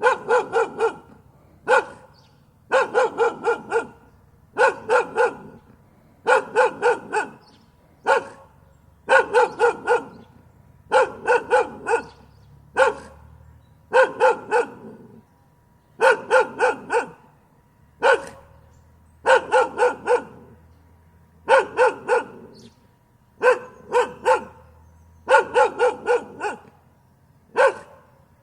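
A dog barking in rapid bursts of three to five barks, each burst followed by a pause of about a second, repeating over and over.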